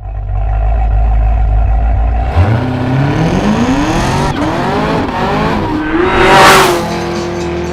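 Hennessey Exorcist Camaro ZL1's supercharged V8 running low and steady, then climbing in pitch under hard acceleration, with an upshift about four seconds in and a second climb. A loud rushing burst, the loudest moment, comes near the end.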